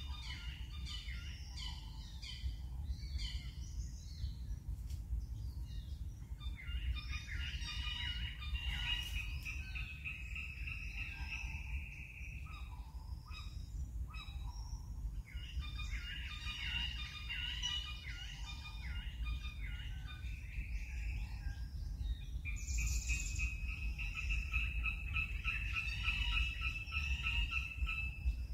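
Birds chirping and calling in overlapping bursts over a steady low rumble, with a long, even trill for the last several seconds.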